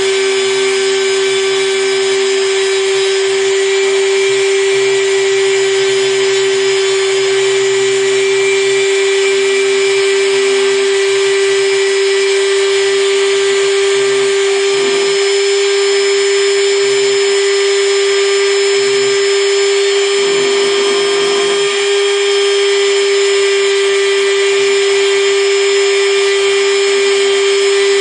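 Takima router spindle on a desktop CNC mill running at a steady speed with a constant high whine, its 0.8 mm bit engraving a copper-clad PCB. A brief rougher, lower sound joins in twice, about halfway and again after twenty seconds.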